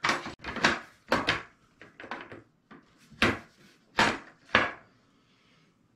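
Wooden slatted tabletop of a folding camping shelf knocking and clattering against its metal frame as it is worked out of the frame's grooves and lifted off. About ten sharp wooden knocks, the loudest a few seconds in.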